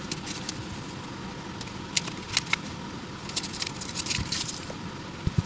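Pages of a handmade paper journal being flipped and fanned by hand: paper rustling and crackling, with a few sharp flicks about two seconds in and a quick flurry of rustles a little later. A couple of dull thumps near the end.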